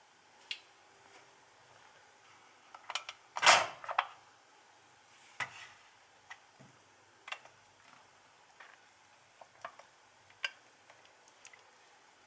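Stainless steel pressure cooker lid being unlocked, turned and lifted off the pot: scattered clicks and metal knocks, the loudest a short clatter about three and a half seconds in.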